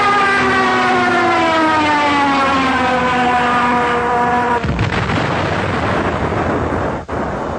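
Junkers Ju 87 Stuka dive bomber: a loud whine, falling steadily in pitch for about four and a half seconds, then breaking off into a rough rumbling noise.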